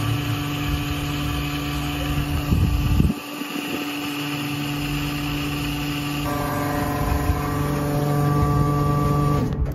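LPG autogas dispenser pump running steadily while it fills the van's gas tank through the filler hose. More, higher tones join the hum about six seconds in, and it cuts off near the end.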